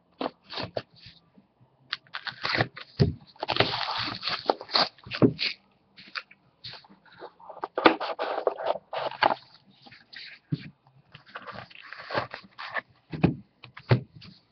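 Packaging of a sealed box of trading cards being torn open and handled: irregular rustling, tearing and scraping of wrapper and cardboard, with a few sharp taps. There are longer stretches of tearing about three seconds in and again around eight seconds in.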